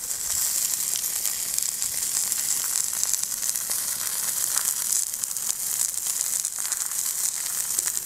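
Hare meat frying in butter in a pan on hot campfire coals: a steady sizzle with fine crackling.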